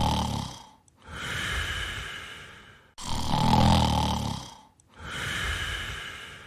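A man snoring heavily, twice: each cycle is a low, buzzing snore followed by a long hissing breath, repeating about every four seconds with short pauses between.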